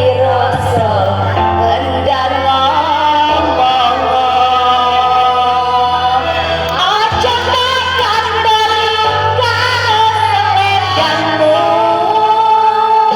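Music with a singing voice carrying the melody over a steady bass line.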